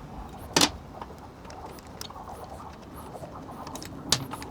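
A 12mm wrench works on the motorcycle's horn mounting bolt: a sharp metallic click about half a second in, another near the end, and a few faint ticks of metal tool on metal between.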